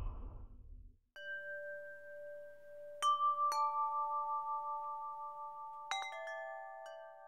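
Background music fading out, then a slow run of single bell-like struck notes, each ringing on long after it is struck and layering into a soft chord: a closing musical jingle.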